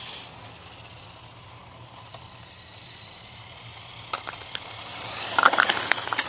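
Tamiya T3-01 Dancing Rider RC trike driving on asphalt: its small electric 370 motor and gears whine, faint while the trike is far off, then growing louder with tyre noise and a few sharp clicks over the last two seconds as it comes close.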